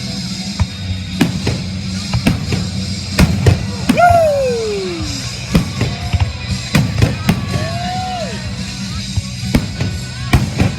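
Fireworks display: repeated sharp bangs and cracks of shells bursting, irregularly spaced, with music playing underneath and a few gliding whistle-like tones, one falling steeply about four seconds in.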